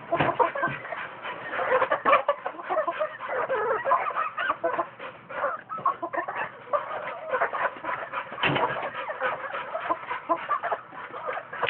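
A flock of gamefowl chickens clucking, with many short calls overlapping without a break as they feed on scattered grain.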